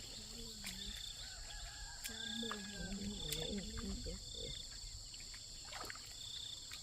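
Outdoor ambience: a steady high insect chorus with a short repeating chirp every second or two, a person's voice talking faintly in the middle, and a few light clicks.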